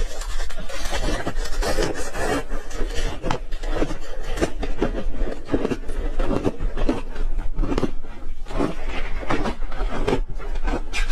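Ice being chewed and crunched in the mouth close to the microphone, a dense unbroken run of crunches.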